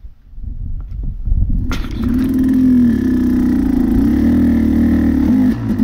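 KTM dirt bike engine building from a low rumble to a loud, steady run about two seconds in, its pitch wavering up and down with the throttle as the bike rides the trail.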